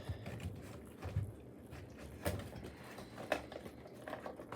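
A few light clicks and taps of a small cardboard puzzle-cube box being handled and opened.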